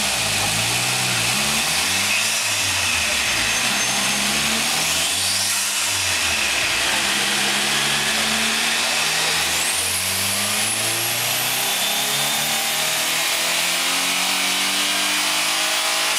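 Turbocharged 2.2L Ecotec inline-four in a Pontiac Sunfire GT running under load on a chassis dyno, the front wheels spinning on the roller. The engine pitch climbs and falls several times, then rises steadily through the second half, with a high whine climbing alongside it.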